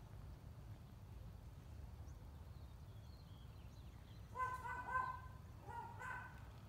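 Two short bursts of honking bird calls, the first about four and a half seconds in and the second about a second later, over a steady low rumble.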